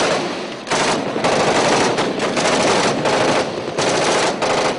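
Airsoft guns firing on full auto in long rapid bursts, several bursts back to back with short breaks between them.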